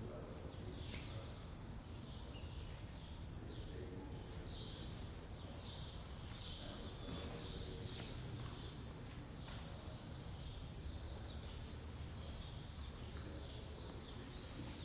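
Small birds chirping faintly, many short high notes repeated irregularly, over a low steady hum.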